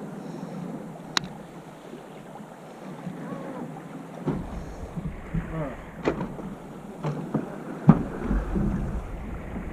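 Wind buffeting the microphone over choppy sea water against a fishing boat's hull, with a few sharp knocks, the loudest about eight seconds in.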